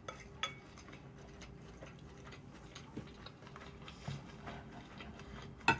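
Quiet eating sounds: scattered small clicks and taps of utensils and mouth, with a sharper click near the end.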